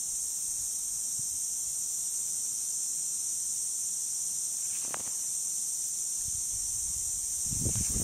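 Lawn sprinkler system spraying water: a steady, high hiss of spray. There is one faint click about halfway through and a brief louder low rush just before the end.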